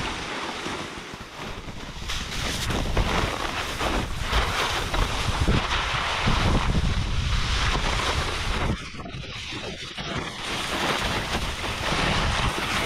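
Wind buffeting the microphone over the hiss and scrape of a splitboard sliding across snow, with a brief lull about nine seconds in.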